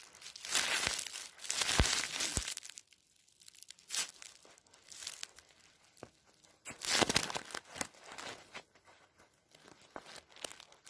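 A dachshund puppy tearing at a fabric plush toy with its teeth, ripping the cloth and pulling out the stuffing. There are long tearing bursts from about half a second to two and a half seconds in and again around seven seconds, with shorter rips and small clicks between.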